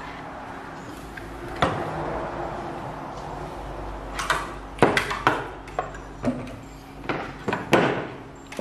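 Handling noise from an inverter circuit board with aluminium heatsinks being moved and set down on a wooden table: scattered knocks and clicks, several close together about five seconds in and again near the end.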